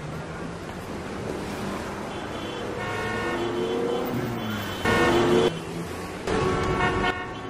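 Street noise with a car horn honking twice, about a second and a half apart, past the middle.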